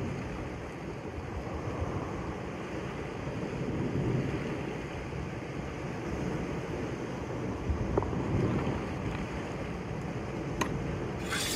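Sea waves washing against a rocky shore, with wind rumbling on the microphone and a couple of faint clicks. Background music begins just before the end.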